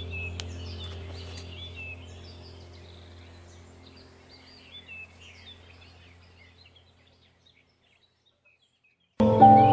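Birds chirping over a steady low drone, fading out gradually to silence. Music starts suddenly near the end.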